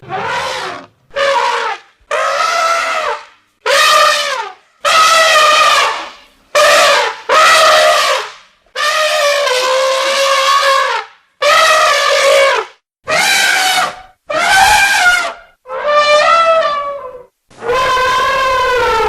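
Wild elephant trumpeting: a rapid series of about a dozen loud, brassy calls, each half a second to two seconds long, with short gaps between them.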